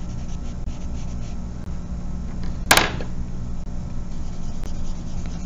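Charcoal pencil rubbing across drawing paper as a square of a value scale is shaded, over a steady low hum. About halfway through there is one sharp click.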